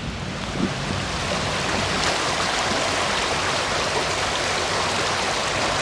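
Steady rushing noise of flowing water, swelling about a second in and then holding even.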